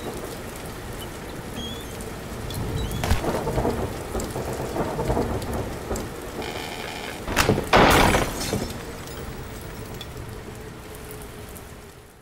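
Thunderstorm sound effects: steady rain with low rolls of thunder. About seven and a half seconds in, sharp cracks and a crash as a tree breaks and falls into the house, smashing a window, the loudest moment; then the storm fades out.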